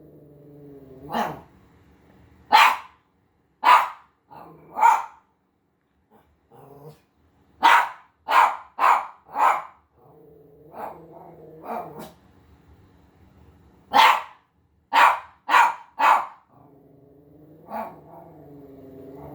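Small Havanese dog barking in short sharp barks, mostly in quick runs of three or four, with low growling between the runs.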